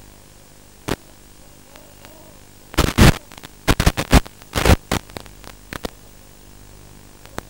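Bursts of radio static from an analog FPV video receiver as the drone's video signal breaks up: a short crackle about a second in, then a cluster of crackling bursts from about three to six seconds in, over a steady low hiss and hum.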